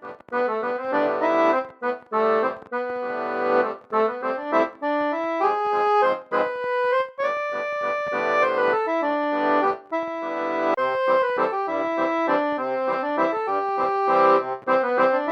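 Instrumental music: a quick melody over held chords of sustained, reedy-sounding notes that change several times a second, with brief breaks between phrases.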